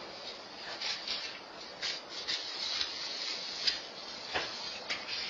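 A steady hiss with scattered, irregularly spaced ticks, clicks and short crackles, the sharpest a little under four seconds in and again just after.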